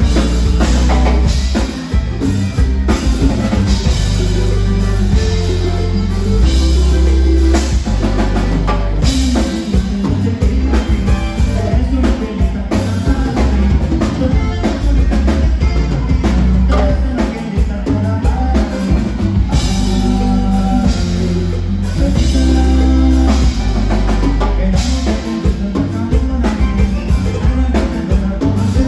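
Live conjunto band playing: button accordion over a bajo sexto, electric bass and drum kit keeping a steady beat.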